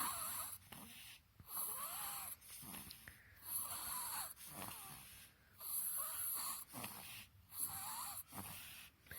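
A sleeping baby snoring through a blocked nose: congested, wheezy breaths in a slow, even rhythm, about one every two seconds, each carrying a whistling note that bends in pitch.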